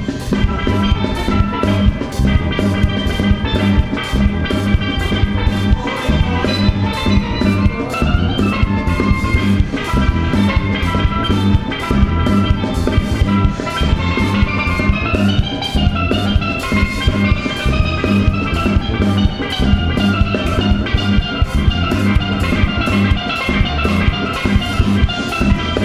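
Live calypso band instrumental: a steelpan played with sticks carries a quick melody over a drum kit and bass with a steady beat.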